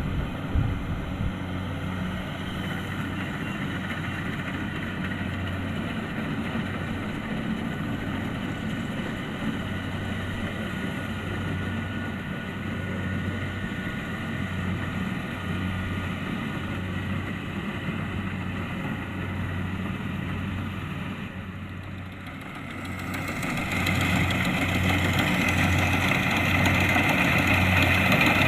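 Kubota DC-70 Plus rice combine harvester running, a steady diesel engine drone with machinery noise. It dips briefly about three-quarters of the way through, then comes back louder and brighter toward the end.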